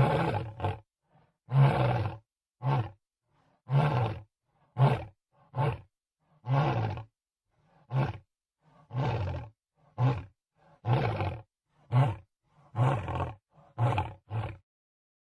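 Lion roar sound effect: a series of short, low roars and grunts coming roughly once a second, some in quick pairs, stopping shortly before the end.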